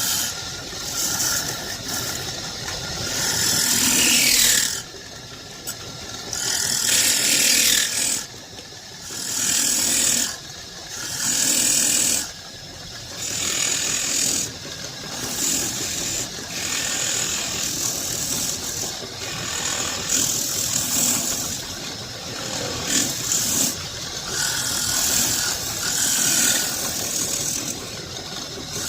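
Wood being scraped or abraded by a woodworking tool in repeated passes of about one to two seconds each, a harsh rasping hiss broken by short pauses.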